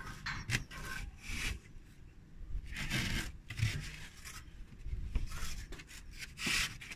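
A brick scraping and rubbing against foam insulation board and brickwork in irregular strokes. It is the sound of a brick that has dropped into the gap behind the wall being worked loose and pulled out.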